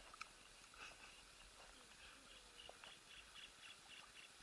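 Near silence: quiet outdoor ambience with a faint click just after the start, then faint short high chirps from a small animal repeating about four times a second from about two seconds in.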